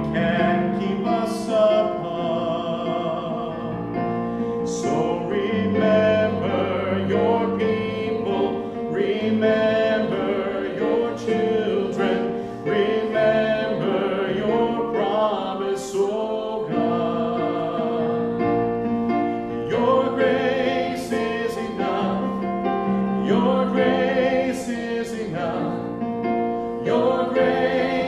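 A man singing a slow gospel song with keyboard accompaniment.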